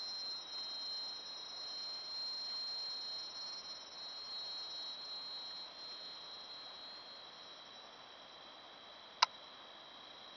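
Chorus of jungle insects: a steady, high-pitched shrill of several held tones, fading slightly partway through. A single sharp click sounds about nine seconds in.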